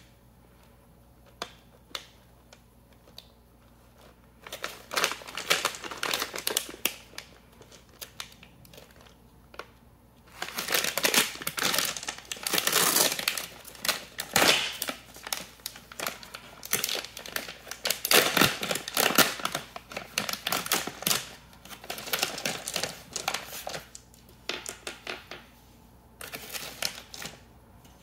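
Plastic candy bag crinkling as it is handled in the hands, a few sparse clicks at first, then much denser and louder crackling from about ten seconds in as the bag is torn open across the top.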